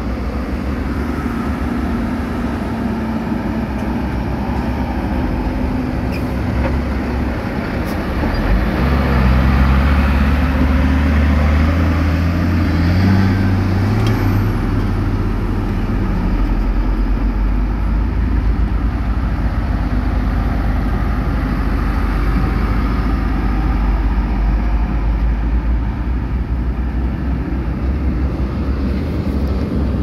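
Heavy diesel construction machinery running, one engine revving harder from about nine seconds in and easing back around sixteen seconds. A brief high squeal comes about fourteen seconds in.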